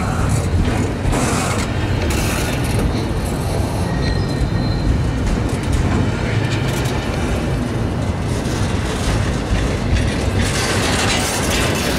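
Double-stack intermodal well cars rolling past on steel rails: a steady, loud rumble of wheels and car bodies, with brief faint wheel squeals now and then.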